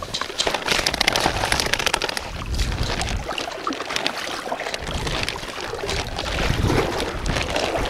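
Shallow seawater sloshing and splashing around the legs and hands of someone wading, as a gill net is lifted out of the water by hand, with a patter of dripping and splashing in the first two seconds.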